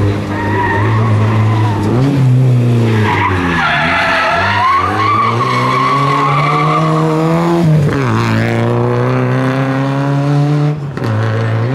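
Peugeot 205 rally car's four-cylinder engine revving hard through a hairpin, the revs climbing and then falling sharply three times as the driver lifts and shifts. Through the middle the tyres squeal as the car slides round the bend.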